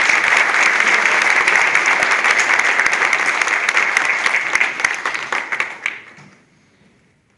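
Audience applauding, many people clapping at once, then the applause dies away about six seconds in.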